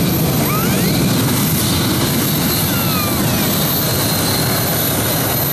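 Competition pulling tractor's engines running at full power, loud and steady, with a constant high whine above the engine noise.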